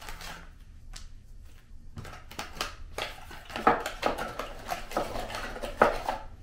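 Rustling and light plastic clicks of a reusable face mask and its packaging being handled, with two sharper clicks in the second half.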